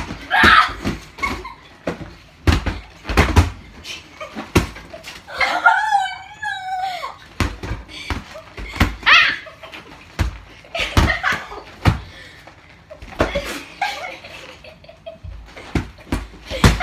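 Girls laughing during a playful fight, with many sharp thumps and knocks of bodies and a soft object hitting the beds and each other. About five and a half seconds in, one of them lets out a drawn-out, wavering squeal.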